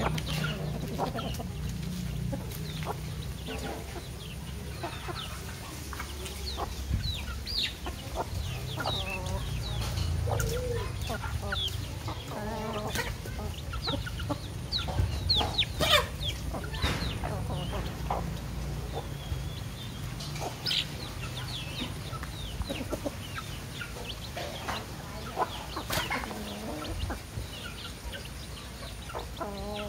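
A flock of chickens clucking on and off while feeding, with many short high calls and a few sharp clicks, over a low steady rumble.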